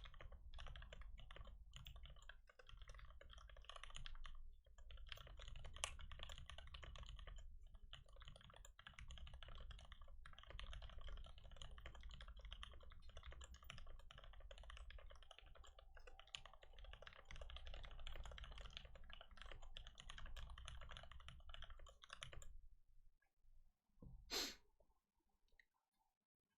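Computer keyboard typed on fast and without a break, a rapid stream of key clicks, which stops about three-quarters of the way through; one louder click comes a couple of seconds later.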